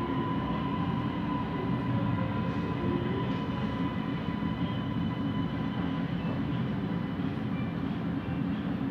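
Siemens Inspiro metro train running, heard from inside the car: a steady low rumble of the running gear, with a faint high whine that fades away over the first couple of seconds.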